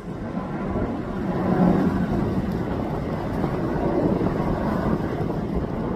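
Wind buffeting the microphone: a loud, steady rumble that starts suddenly.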